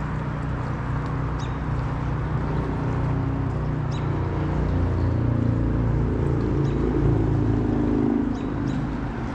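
Road traffic: a vehicle's engine hum swells and fades in the middle, over the steady rush of fast river water.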